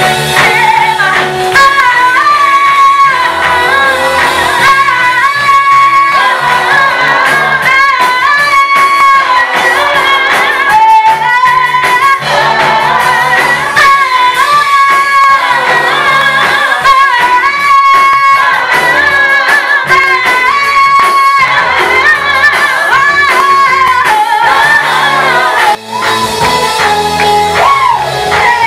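Gospel praise song: a group of singers, with female voices leading, sings a melody over a live band with bass.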